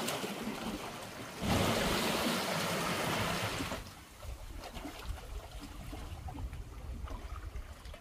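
Seawater washing and lapping against shore rocks: a louder wash from about a second and a half in to about four seconds, then softer trickling and small splashes among the rocks.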